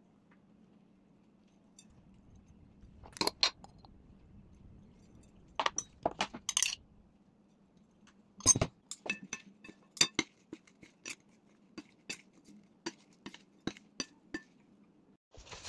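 Wooden chopsticks clicking against a ceramic plate while tossing mushrooms, a string of light taps in the second half, with a few louder clinks on the plate earlier.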